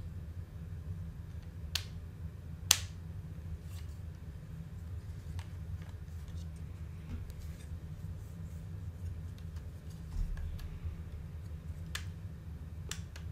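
Plastic LEGO bricks clicking as they are pressed together: a few scattered sharp clicks, the loudest about three seconds in, over a steady low hum.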